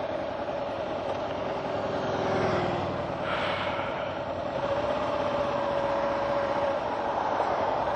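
Kawasaki KLR650 motorcycle engine running steadily at a crawl, a steady hum over a noise haze.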